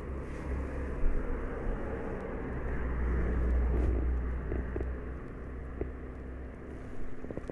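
A low outdoor rumble that swells about halfway through and then eases off.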